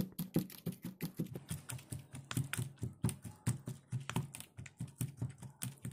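Stone pestle pounding chili paste in a granite mortar: steady dull thuds, about four a second.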